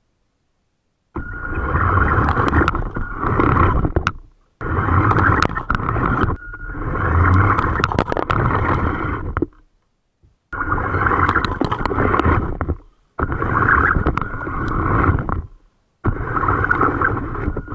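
Homemade remote-controlled tank running: its drive motors whining steadily and its tracks and gears rattling, close to the microphone, with scattered clicks and knocks. The noise comes in five stretches, each breaking off abruptly into silence.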